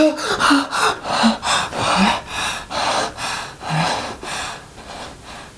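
A man jolts awake from a nightmare with a sharp gasp, then pants hard and fast, about three breaths a second, the breathing easing off near the end.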